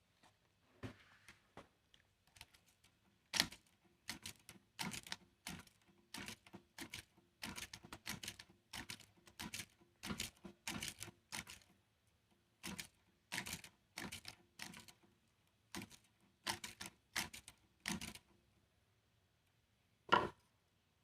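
Irregular sharp clicks and knocks, one to three a second, with a faint steady hum through the middle stretch: small parts being handled and tapped while working on an electric fan.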